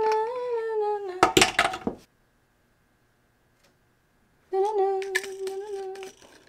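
A woman humming a few held notes, broken a little over a second in by a short clatter of knocks. About two seconds of dead silence follow, then she hums again near the end.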